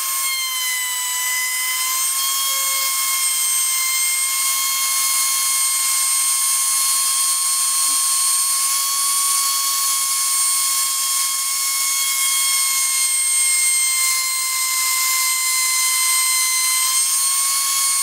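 Plunge router running at speed with a straight cutting bit, routing a 5 mm deep recess into a yew picture frame: a steady high-pitched whine.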